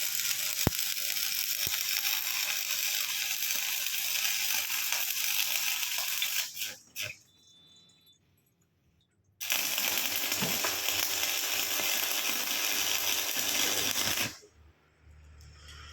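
Welding: a steady crackling hiss that runs for about six seconds, cuts out, then starts again after a few seconds' pause and runs for about five more seconds before stopping abruptly. There is a sharp click near the start.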